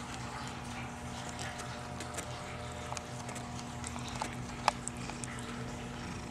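Nine-day-old Maine Coon kittens suckling at their mother: faint, scattered wet clicks of nursing over a steady low hum, with one sharper click a little past halfway.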